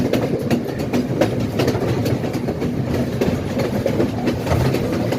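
Badulla Night Mail passenger train running on the rails, a steady low rumble with many sharp clicks from the wheels passing over rail joints.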